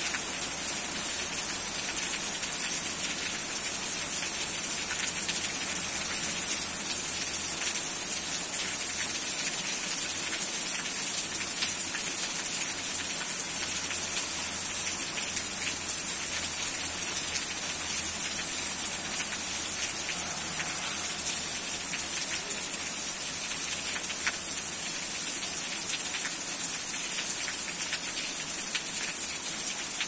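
Heavy rain falling steadily on leafy trees: an even hiss with a fine patter of drops.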